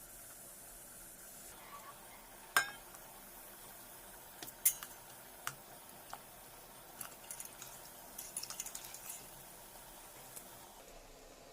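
Kitchen utensils clinking and tapping: one sharp, ringing clink a couple of seconds in, then scattered lighter clinks and a run of quick small taps.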